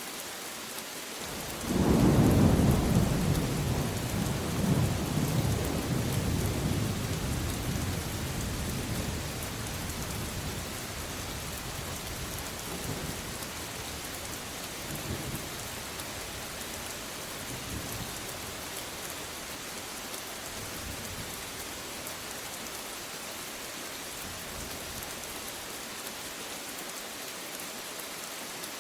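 Steady rain with a thunderclap about two seconds in that rumbles and fades away over the next ten seconds or so, followed by a few fainter rumbles.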